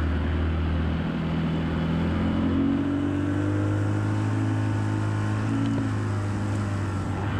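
Outboard motor of a small inflatable boat running under way. Its pitch steps up about a second in as the throttle opens, then holds steady over a rush of wind and water.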